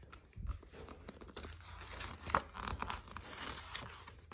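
Paper rustling and crinkling as a page of a picture book is turned by hand, with a few soft taps.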